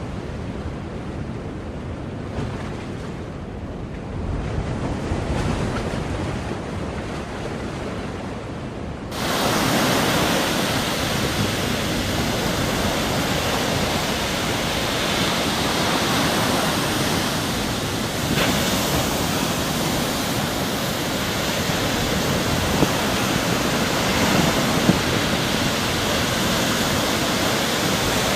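Sea waves breaking and washing on a shore, a steady rushing noise. About nine seconds in it changes abruptly to a louder, brighter hiss of surf.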